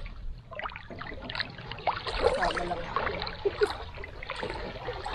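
Shallow seawater sloshing and splashing in irregular spurts as someone wades through it.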